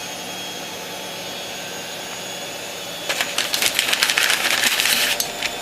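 A steady hiss, then about three seconds in a couple of seconds of rapid crinkling and clicking as new piston rings are taken out and handled.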